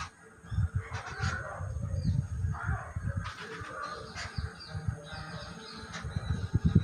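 Birds calling in short chirps over loud, uneven low thumping and rumbling that starts about half a second in.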